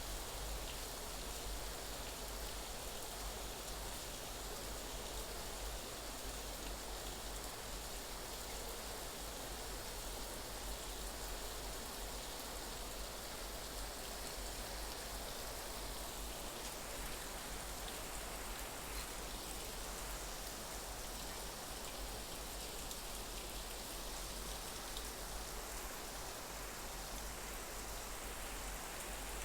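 Steady rain falling, the drops pattering on a surface in an even, unbroken hiss.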